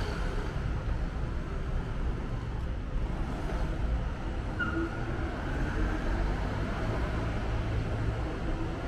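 City street traffic: a steady low rumble of passing cars and engines, with one short high chirp near the middle.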